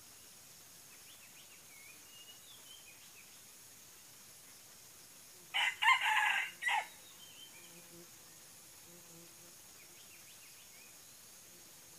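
A rooster crows once, about halfway through: a single short crow of roughly a second. Faint high chirps of small birds sound in the background.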